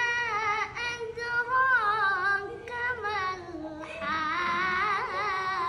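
A boy reciting the Quran in the melodic tilawah style. His high voice holds long ornamented notes with wavering pitch and breaks off briefly three times.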